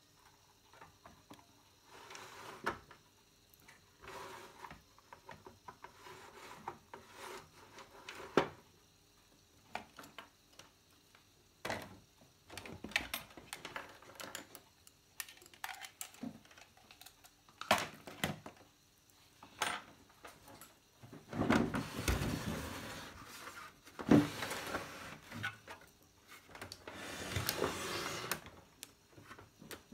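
Hands handling a CRT television's chassis and plastic cabinet on a wooden bench: scattered clicks, knocks and light taps, with longer scraping and rubbing stretches about two-thirds of the way through and again near the end as the cabinet is worked over the picture tube.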